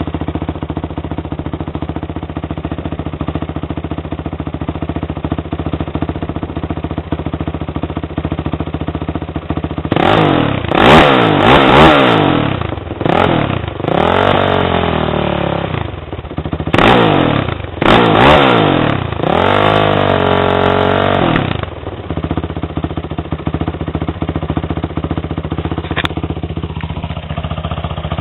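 Honda TRX450R quad's single-cylinder four-stroke engine, bored out to 501cc and breathing through a DMC full exhaust, idling steadily. About ten seconds in it is blipped through several sharp revs, the last held longest, then it settles back to idle.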